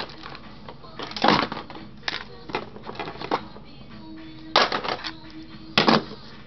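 Hard plastic parts of a disassembled Bose CD player clicking and clattering as they are handled, in several short bursts, the loudest about a second in and again near the end.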